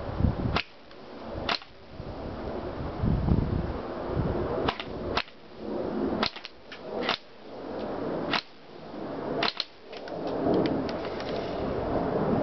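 Airsoft gun firing sharp single shots, one every second or so, then a quick run of shots near the end.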